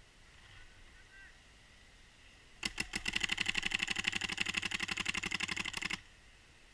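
Paintball marker firing a rapid string of shots, more than ten a second, for about three seconds. It starts a few seconds in and stops abruptly.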